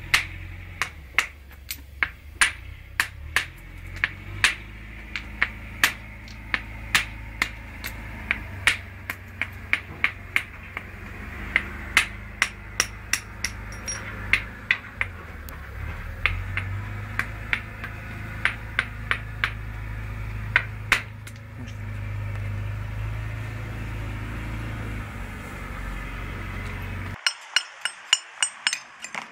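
A stonemason's hammer chipping a hand-held stone block into a hexagonal cobblestone: a long string of sharp, ringing knocks, about two a second, that stop about 21 s in, over a low rumble. Near the end come quicker, brighter taps of a paver's hammer setting cobblestones into sand.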